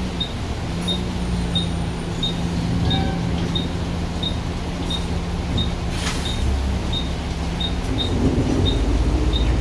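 KMB bus running steadily on the move, its engine a low hum that grows heavier near the end, with a regular click about one and a half times a second like a turn-signal relay. A brief sharp rattle about six seconds in.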